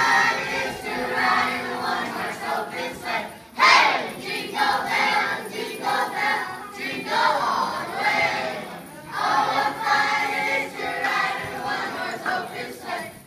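A large group of children and adults singing together in unison, with one sudden loud group shout about four seconds in.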